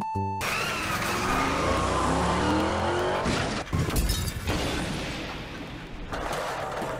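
Cartoon sound effect: a noisy rush with sliding pitches, then a loud crash a little over three and a half seconds in that trails off.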